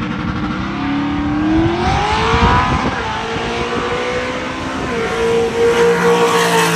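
Drag-race car launching and accelerating hard down the strip, its engine note climbing steeply with a brief dip about three seconds in, like a gear change, then holding high.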